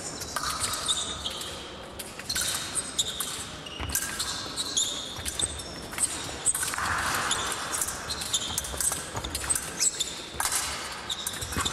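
Épée fencers' shoes squeaking and stamping on the piste as they move in a bout, with short sharp clicks scattered among the squeaks.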